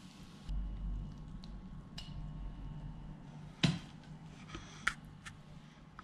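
Quiet kitchen handling sounds while pancakes cook: a low rumble of the camera being moved, then a few light clicks and knocks, one sharper knock about halfway through.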